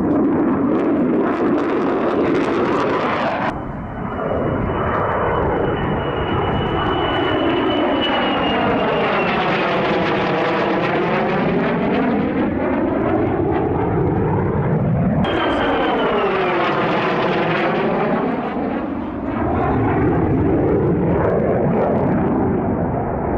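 F-35A Lightning II's turbofan jet engine roaring as the jet flies past, its high whine sliding down in pitch as it goes by. The sound cuts off abruptly twice, about three and a half seconds in and again about fifteen seconds in, and each time picks up on another pass.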